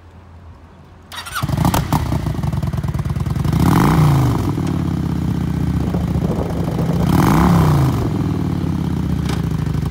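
A 2009 Kawasaki Vulcan 900's fuel-injected, liquid-cooled V-twin is started about a second in and settles into an idle. It is then revved twice, each time rising in pitch and falling back to idle.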